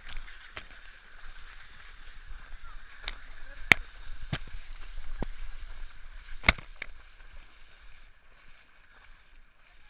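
Shallow seawater splashing and sloshing close to a waterproof action camera as people run and kick through it, with about seven sharp taps of water or hands striking the camera housing, the loudest near the middle and about two-thirds through.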